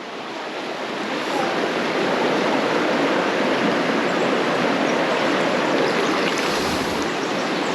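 Creek water rushing steadily, swelling over the first couple of seconds and then holding level.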